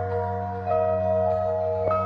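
Background music: a slow melody of held notes that change a couple of times, over a steady low bass.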